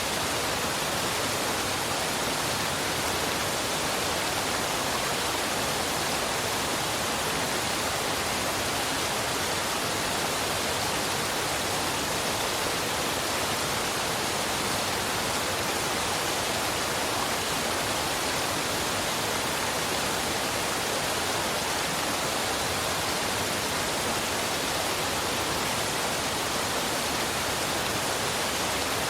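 Waterfall pouring steadily: a continuous, even rush of falling water with no change in level.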